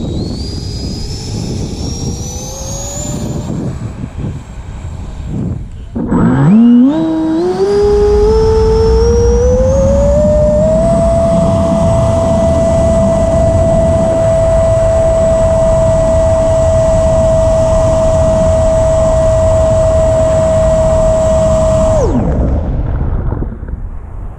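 Electric ducted fan of an FMS Futura 80mm 6S RC jet, heard from a camera on board. A whine rises at the start. About six seconds in it starts low and climbs in steps as the throttle comes up, then holds one steady high pitch over a loud rush of air for about ten seconds. Near the end the pitch drops sharply as the throttle is pulled back.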